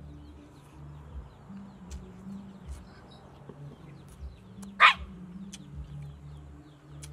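A dog barks once, short and sharp, about five seconds in. Underneath run faint low background music and light bird chirps.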